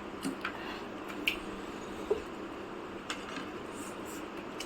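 A few scattered light clicks and taps of eating at a table, utensils against dishes, over a low steady room hum.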